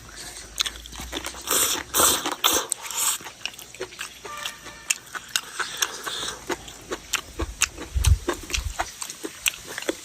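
A person eating close to the microphone: chewing and crunching food, with many short sharp clicks scattered throughout and a few louder crunchy bursts about two to three seconds in.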